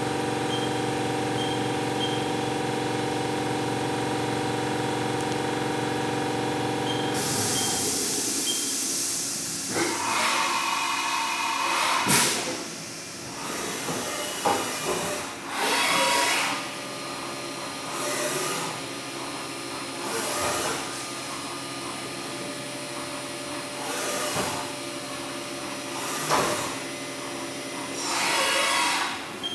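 Haas VF-4 CNC vertical machining center running a program: a steady whine of several tones for about seven seconds, then a sharp hiss and a string of short hissing blasts with clunks every two to three seconds as the umbrella tool changer swaps tools.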